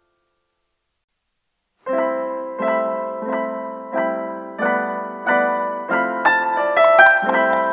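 Background music on piano-like keyboard: after near silence, repeated chords start about two seconds in, struck roughly every two-thirds of a second, with a higher melody added near the end.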